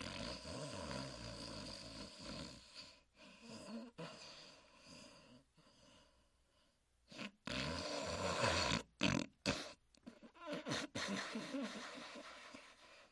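Huckleberry Hound snoring, a cartoon snore voiced by an actor, in long drawn breaths of two to three seconds each with a quieter lull in the middle.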